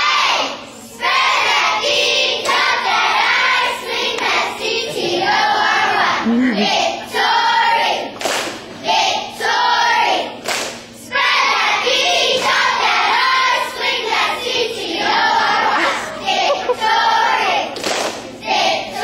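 A group of young girls chanting a cheer in unison, phrase after phrase, with sharp hand claps marking the rhythm.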